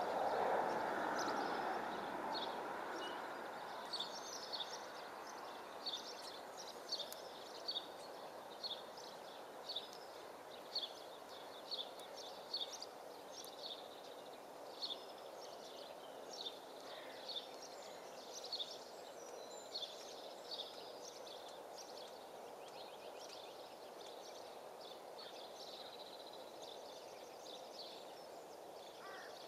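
Small birds chirping in short repeated calls, about one a second, over a steady outdoor background noise that is louder at the start and fades over the first several seconds.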